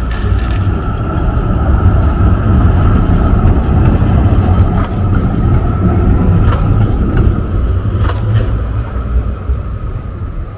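A motor vehicle passing close on a city street: a loud low rumble that builds over the first two seconds and fades toward the end, with a thin steady whine above it and a few sharp clicks in the middle.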